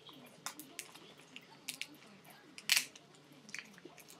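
Tape being picked at and peeled off a small gift box: scattered crinkles and clicks, with one short, sharp rip a little under three seconds in.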